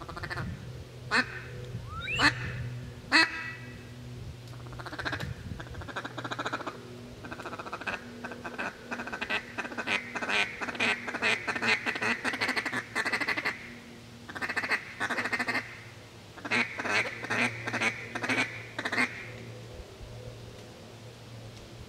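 Wood ducks calling: a few sharp rising squeals in the first seconds, then two long runs of rapid, repeated short calls.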